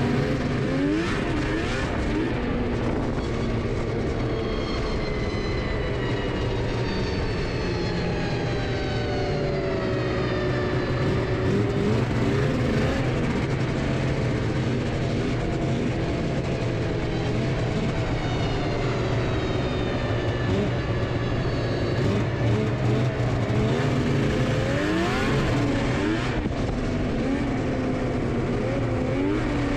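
Two-stroke snowmobile engine running hard, its pitch rising and falling as the throttle is opened and eased off again and again.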